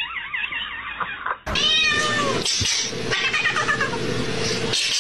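Cats meowing over and over in rising-and-falling calls: a fairly quiet run at first, then, after a sudden cut about a second and a half in, a louder and more continuous run of meows and yowls.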